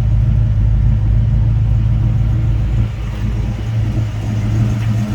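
A 355 small-block Chevy V8 crate engine idling steadily, with a low, even drone.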